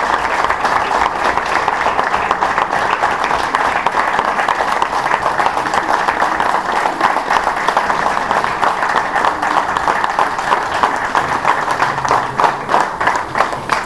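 Audience applauding, dense clapping that thins out to fewer, separate claps near the end.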